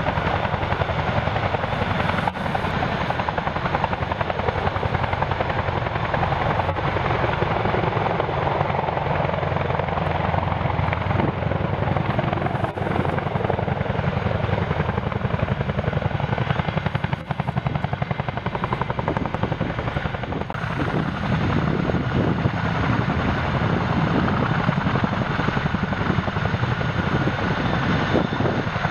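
Two Boeing MH-47G Chinook tandem-rotor helicopters hovering low and setting down, a loud, steady rapid rotor beat over the noise of their turbine engines. The sound grows deeper and fuller about two-thirds of the way through.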